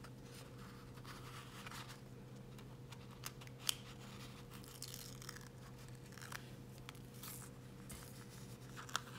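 Faint rustling and crinkling of a waxy backing sheet being peeled off a cling-mount adhesive sticker on a rubber stamp, with a few small sharp clicks.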